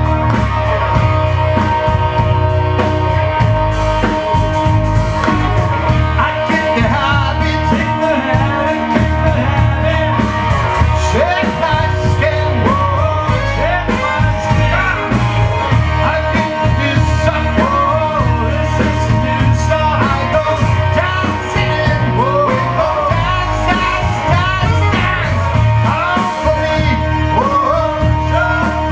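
Rock music played by a band: electric guitar with bending, gliding notes over a steady bass and drum groove, with some singing.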